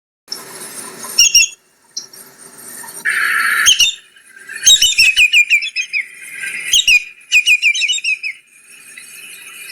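Greater yellowlegs calling: runs of short, clear, downslurred whistled notes, several a second, repeated in bursts. A brief hissing burst sounds about three seconds in.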